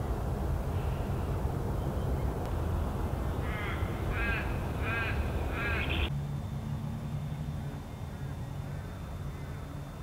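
A bird calls in a short run of four or so repeated notes, each rising and falling in pitch, between about three and a half and six seconds in, over a steady low rumble of wind. The background cuts off abruptly at about six seconds and is quieter after, with a faint thin high tone.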